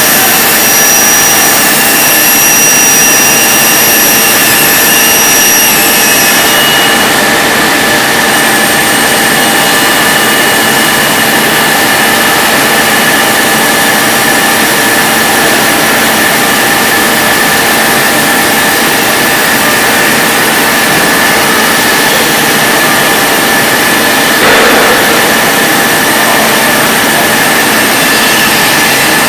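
CNC machining centre running steadily as a thin vertical cutter cuts a curved outline through a wooden panel. The sound is a loud, even rush with a steady whine over it.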